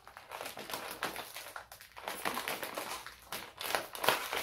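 Lay's Poppables chip bag crinkling and crackling in irregular clicks as hands tug at its sealed top, trying to pull it open.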